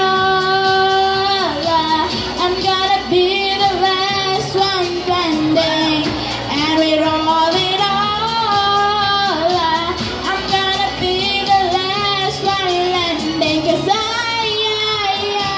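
A girl sings solo into a handheld microphone over accompaniment music. The melody is continuous, with long held notes sung with vibrato.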